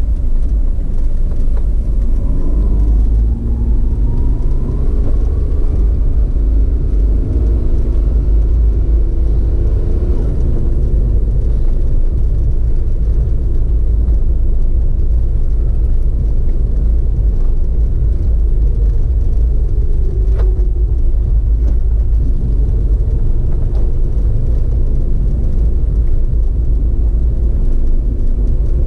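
A moving vehicle heard from on board: steady, heavy low road and wind rumble, with engine tones that rise in pitch a few seconds in as it speeds up. There is one sharp tick about twenty seconds in.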